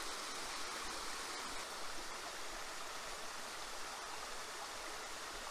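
Small hill stream rushing steadily over rocks.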